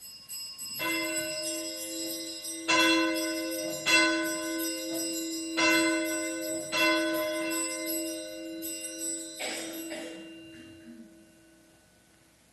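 Altar bells rung at the elevation of the chalice, right after the consecration at Mass. They ring in about five or six shakes or strikes over some nine seconds, then the ringing dies away.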